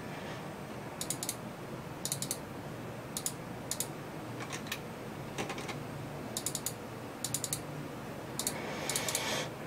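Small groups of sharp clicks from a computer keyboard and mouse, two to four quick clicks at a time, roughly once a second, with a brief louder rustle near the end.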